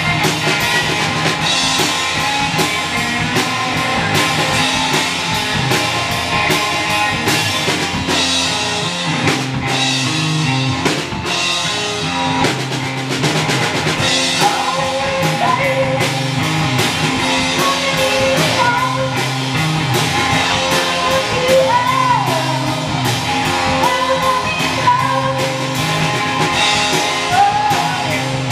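Live rock band playing guitar and drum kit with a steady beat. Sung vocals come in about halfway through.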